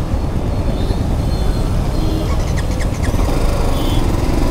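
Wind rumbling on the rider's microphone over the running engine of a BMW G 310 GS motorcycle moving through traffic. A few quick faint ticks come about two and a half seconds in.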